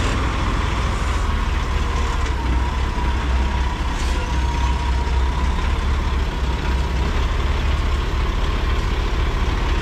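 Peterbilt semi truck's diesel engine running at low speed with a steady, deep rumble as the tractor-trailer is maneuvered at a loading dock, with a faint thin whine in the middle.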